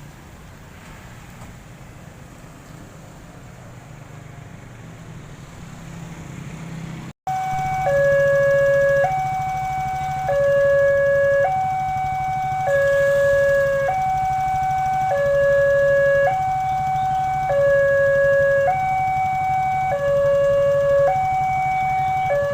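Railway level-crossing warning siren sounding a two-tone hi-lo alarm, switching between a higher and a lower pitch about every second, over a low steady hum. It cuts in suddenly about seven seconds in, after a low rumble.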